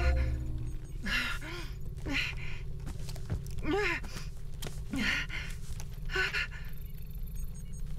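A woman's panicked, ragged gasps and whimpering breaths, about five of them roughly a second apart, over a steady low hum.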